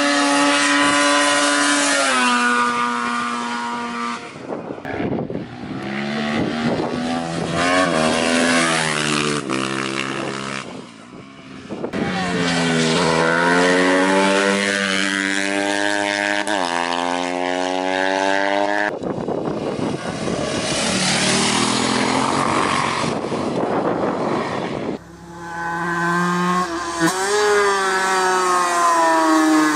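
Racing motorcycle and quad bike engines in a string of separate passes. Each engine climbs in pitch through quick upshifts and drops as it slows for a corner. The sound changes abruptly every few seconds as one pass gives way to the next.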